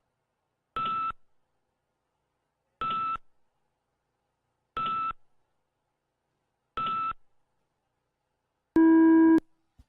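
Electronic race-start countdown tones: four short, identical high beeps about two seconds apart, then a longer, lower and louder launch tone near the end that signals the drone pilots to take off.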